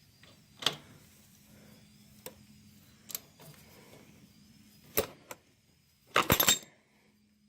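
Metal hand tools and parts clinking and knocking while a drain plug is being fitted and tightened: a handful of separate sharp clicks, then a short rattling burst of rapid clicks near the end.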